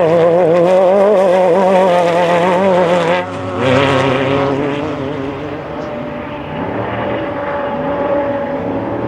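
Off-road race vehicle's engine running hard at high revs, its pitch wavering rapidly. About three seconds in it drops off briefly, then picks up again and gradually fades as it moves away.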